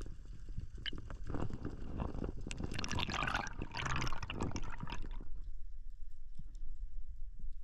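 Water bubbling and gurgling, heard underwater: a dense crackling swell of bubbles that builds for a few seconds and dies away about five seconds in, over a steady low rumble.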